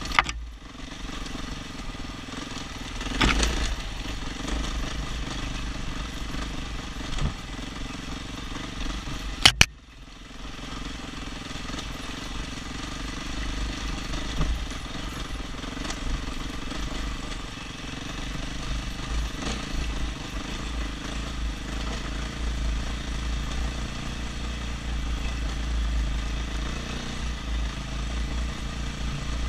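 KTM 500 EXC single-cylinder four-stroke dirt bike engine running at trail speed, heard from the rider's helmet, with a strong low rumble. A few sharp knocks cut through, the loudest about nine and a half seconds in, followed by a brief dip in level.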